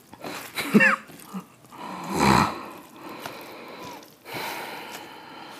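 Close-up eating sounds from a man eating rice and egg curry with his fingers: mouth and chewing noises. There is a short hummed pitch glide about a second in, and a loud breathy rush just after two seconds.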